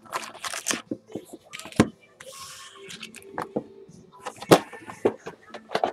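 Foil-wrapped trading card packs crinkling and clacking as they are pulled out of a cardboard hobby box and stacked on a desk, with a few sharp knocks, the loudest about halfway through.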